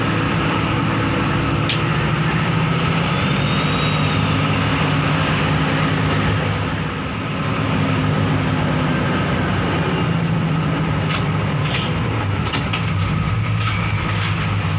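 Engine and road noise of a moving bus heard from inside the cabin: a steady drone that dips briefly about seven seconds in, with a few light knocks in the second half.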